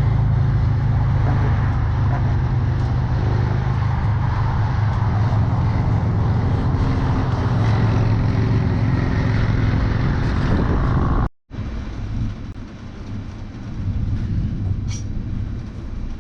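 A motor vehicle's engine idling steadily with a low hum. About eleven seconds in the sound cuts off abruptly, and quieter, uneven noise follows.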